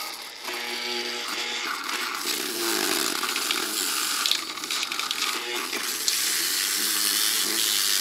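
A failed Seagate 1 TB 7200 RPM hard drive running with its head crashed onto the platter, giving a harsh grinding hiss over a steady hum as the head scrapes along the platter surface. It gets louder and steadier about six seconds in.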